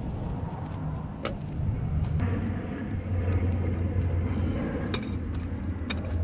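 Low steady hum of a running vehicle engine, growing louder about two seconds in, with scattered light metallic clicks and clinks of small mounting hardware being handled.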